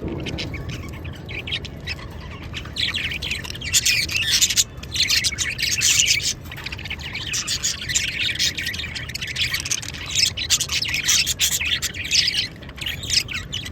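Small pet parrots chattering, a dense run of quick chirps and squawks that gets busier a few seconds in.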